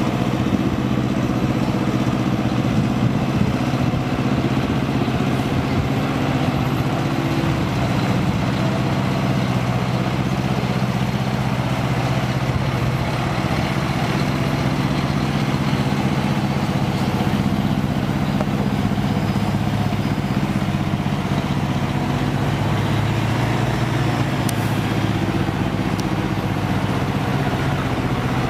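Diesel engine of a heavy-haulage tractor unit running steadily at low revs as it slowly manoeuvres a low-loader trailer.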